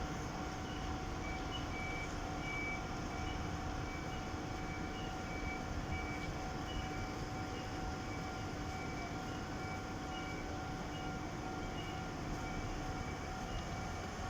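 Japanese railway level-crossing warning bell ringing, a steady repeating ding alternating between two pitches, which signals that a train is due. Underneath is a steady low rumble with a faint hum.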